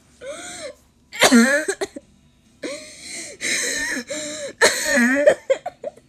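A person laughing hard in a run of high-pitched, wheezing fits, about six bursts with short gasps between, mixed with coughing.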